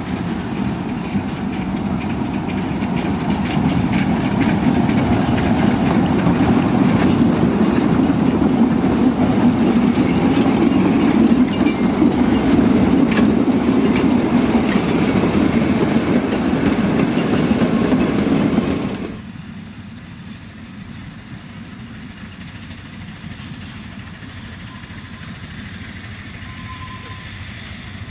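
Narrow-gauge steam locomotive Britomart, a Hunslet quarry saddle tank, running past with its train of wagons, growing louder as it nears, with clicks from the wheels on the track. About two-thirds of the way through it cuts off abruptly to a much quieter, distant train.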